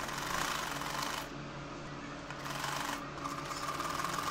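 Sewing machine stitching fabric in spurts: it stops for about a second a little over a second in, and briefly again about three seconds in.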